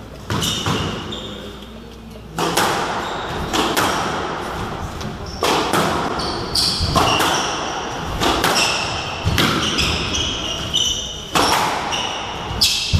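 Squash rally: the ball cracks off rackets and the court walls about every one to two seconds, each hit ringing around the court, with short high squeaks of shoes on the wooden floor between the hits.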